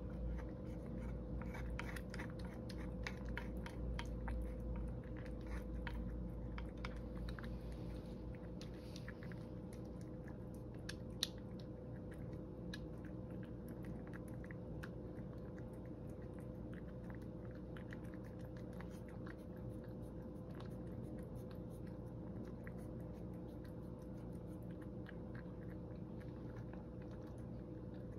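A cat chewing and lapping food from a shallow wooden dish: a steady run of small wet clicks, busiest in the first ten seconds, with one sharper tick about eleven seconds in. A faint steady hum runs beneath.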